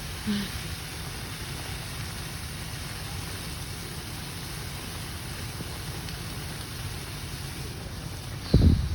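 Steady low rumble with a hiss over it, and a brief loud low thump near the end.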